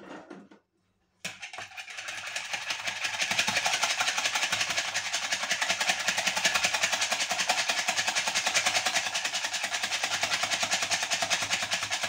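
Metal spoon-shaped whisk beating eggs in a plastic bowl: rapid, even strokes of wire clattering against the bowl. It starts about a second in.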